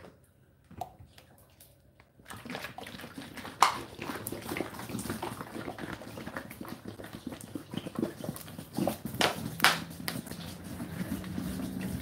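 Whirlpool WFO3P33DLXUK dishwasher starting its wash: water rushes and sloshes inside with irregular clicks and knocks, beginning about two seconds in, and a steady low pump hum joins near the end.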